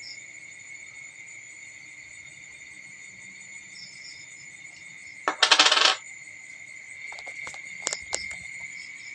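A brief, loud, rattling jingle about five seconds in, followed by a few light clicks, over steady high-pitched cricket chirping.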